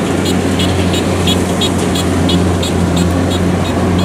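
Rice combine harvester engines running steadily with a low drone, under background music with a quick regular beat of about three ticks a second.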